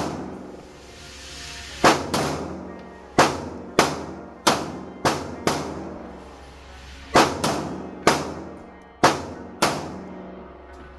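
Glock 19X 9mm pistol fired about a dozen times, in short strings of shots half a second to a second apart with brief pauses between, each shot followed by a short echoing tail.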